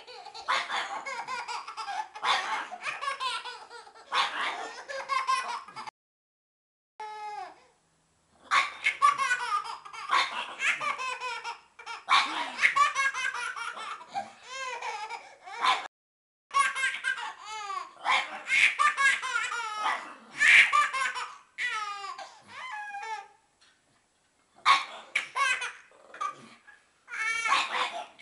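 Baby laughing in long runs of high-pitched belly laughs, broken by a few brief silences.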